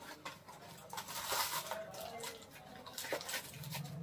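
Small cardboard parts box being turned over and opened by hand: a rustle of cardboard and packing, strongest about a second in, with a few light taps.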